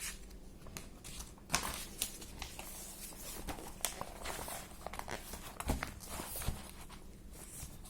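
Faint rustling with scattered light clicks and taps, the sound of something being handled, with no speech.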